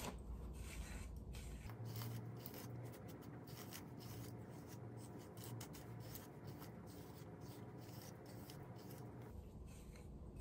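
A detangling hairbrush dragged through wet hair: a faint rasping rub with each stroke, repeated many times in quick, irregular succession.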